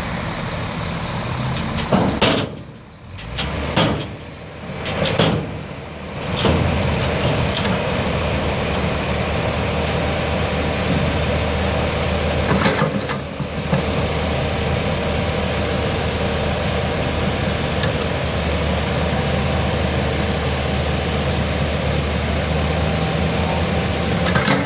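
Diesel engine of construction machinery running steadily. A few sharp knocks and uneven noise come in the first several seconds before the running settles into a steady low hum.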